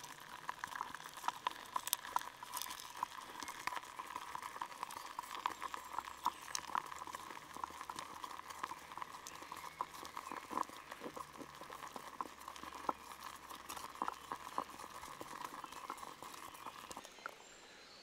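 Melting mixture of wax, resin and charcoal crackling and popping softly in a small tin cup over a fire-starter flame, stirred with a wooden stick. A faint steady whine runs underneath and stops about a second before the end.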